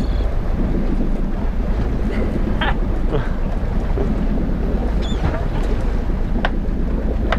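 Steady low wind rumble on the microphone aboard a small open boat at sea, with a few faint short sounds scattered through it.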